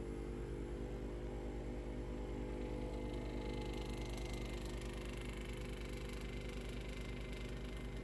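Vacuum pump of a Harvest Right freeze dryer running steadily during a drying cycle: an even mechanical hum with a fast, regular pulse.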